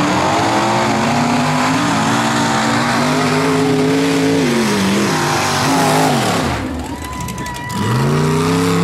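Rock bouncer buggy's engine revving hard and held at high revs with the throttle wavering. It drops off about five seconds in, then climbs back up near the end.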